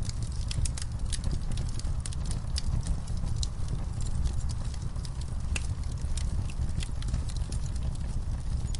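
Logs burning in a fireplace, crackling with frequent irregular sharp pops over a steady low rumble of the fire.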